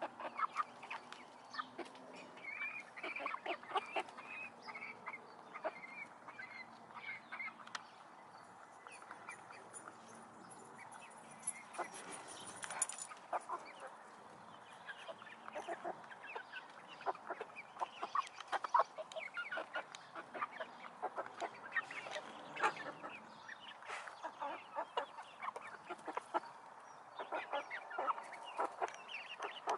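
A flock of hens clucking in many short calls as they forage at close range.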